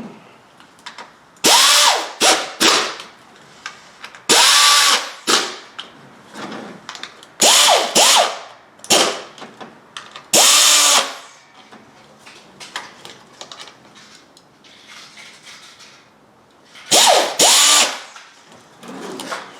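Cordless drill/driver running in about ten short bursts, its motor pitch swooping up and down with each trigger pull. It is snugging down bolts during an ignition coil installation.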